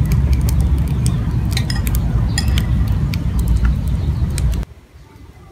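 Metal spoon clinking against small ceramic bowls as egg mixture is spooned into them: a run of light clinks, some with a brief ring. Under it a loud steady low rumble that cuts off suddenly near the end.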